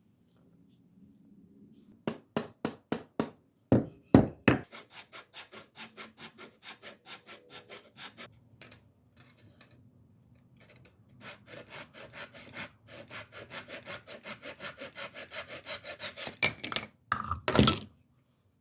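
A hand tool worked back and forth on wood in quick, even strokes, about four a second, with a few sharp knocks on the wood early on, the strokes growing louder in the second half.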